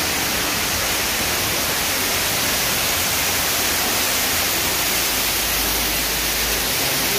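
Man-made waterfall pouring over artificial rock into a shallow pool: a steady, even rush of falling and splashing water.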